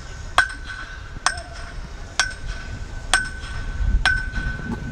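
Sharp metallic clinks at an even pace, five of them a little under a second apart, each leaving a short ringing tone.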